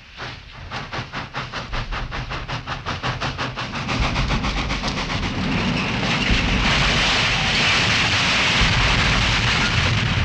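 Steam locomotive coming on fast: a rapid chuffing of exhaust beats, about six a second, that gives way about four seconds in to a loud, steady rush of steam and wheel noise as it passes close by.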